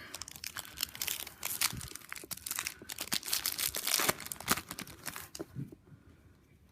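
A trading card pack's wrapper being torn open and crinkled: a run of crackling rustles that stops about five and a half seconds in.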